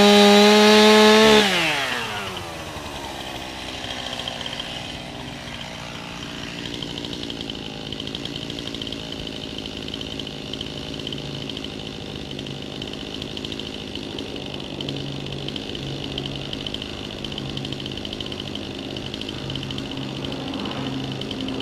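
Chainsaw engine at full throttle, then let off about a second and a half in: the pitch falls away and the saw settles into a steady idle.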